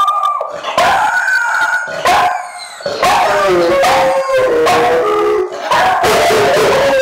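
Several pet dogs, among them a yellow Labrador retriever, howling together in long held, wavering howls. From about three seconds in, several voices overlap at different pitches.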